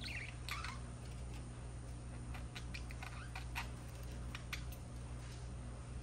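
Budgerigars chattering: a short warble at the start, then scattered high chirps and clicks, thinning out after about five seconds, over a steady low hum.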